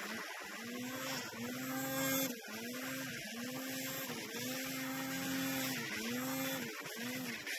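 Snowmobile engine running under way, its pitch dipping and climbing back about once a second, with a steady hiss above it.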